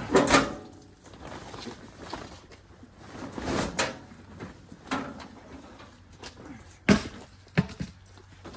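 A Gravely garden tractor's hood swung down and clunking shut, then tarp rustling and a few sharp knocks and clicks as the cover is handled.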